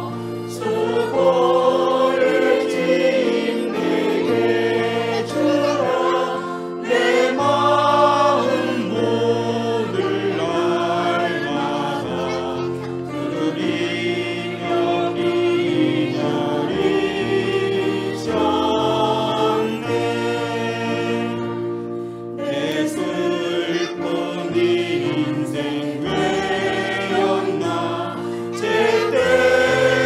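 A Korean hymn sung in slow, held notes over a steady sustained accompaniment. It grows louder near the end as the next verse begins.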